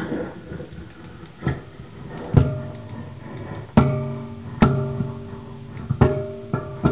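Homemade electric noise box, an aluminium box fitted with springs and bolts, plucked by hand and played through an amplifier. About seven sharp metallic twangs, each leaving a ringing tone that fades out.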